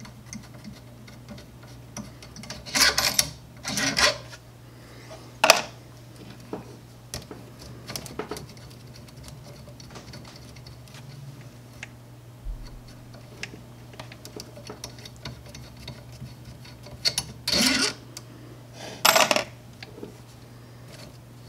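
Hands taking apart an Ultimaker 2+ 3D printer's print head: light clicks and taps of small parts, with five short, louder scraping rattles, three in the first six seconds and two near the end, over a steady low hum.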